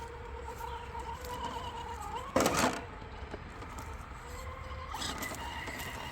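Electric whine of an Axial SCX10.2 RC crawler's 2300 kV motor and geared drivetrain under throttle, shifting pitch slightly as the throttle changes, with a short loud scrape or rustle about two and a half seconds in.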